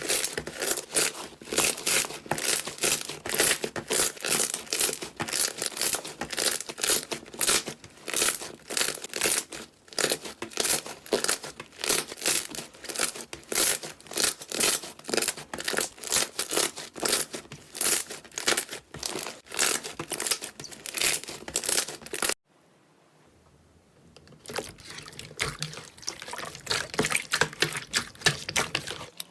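Slime being squeezed and worked by hand, giving a dense, rapid crackling and popping. It cuts off suddenly about 22 seconds in, and after a short pause a second run of slime crackling starts.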